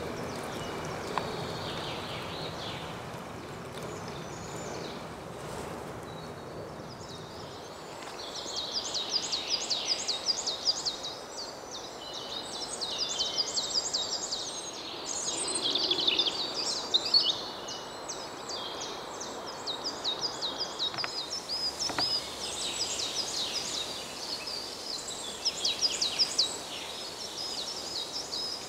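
Songbirds singing in the forest: phrases of rapid, high chirps repeated again and again from about eight seconds in, over a steady rushing background.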